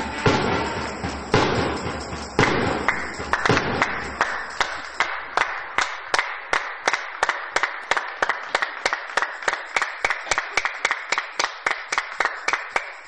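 Spectators' applause between points that settles into steady rhythmic clapping at about three claps a second, slowly growing quieter and stopping near the end.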